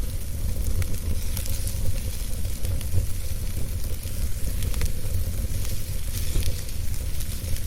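Wood fire crackling in a fireplace: scattered sharp pops and snaps over a steady low rumble and hiss.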